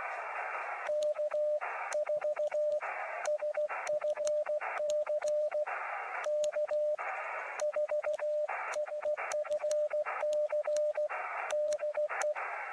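Elecraft KX2 transceiver sending hand-keyed Morse code (CW): a steady mid-pitched sidetone beeps in dots and dashes, with a click at each keying. The receiver's band hiss fills the gaps and drops out while the key is down. The keying starts about a second in.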